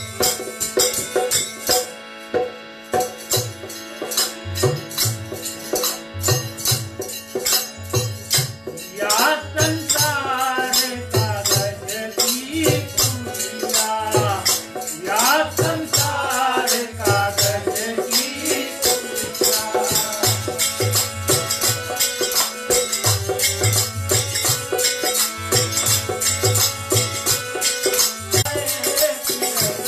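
Live harmonium and dholak music: the harmonium holds steady chords while the dholak keeps a regular beat, over a constant jingling percussion. A voice sings from about nine seconds in until about nineteen seconds, and briefly again near the end.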